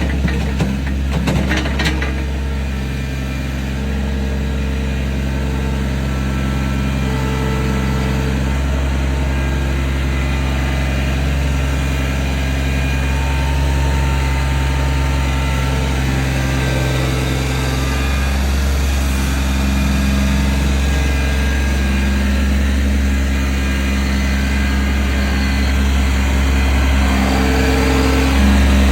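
An engine running steadily with a deep rumble; its pitch shifts slightly about two-thirds of the way through.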